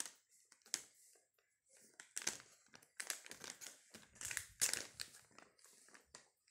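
A baby crinkling and crumpling a thin baby-wipes wrapper in her hands, in irregular rustling bursts, the loudest about two-thirds of the way through.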